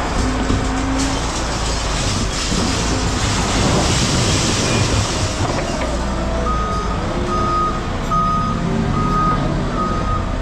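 A work vehicle's engine running, and about two-thirds of the way through its reversing alarm starts beeping, about one beep every two-thirds of a second: the vehicle is backing up.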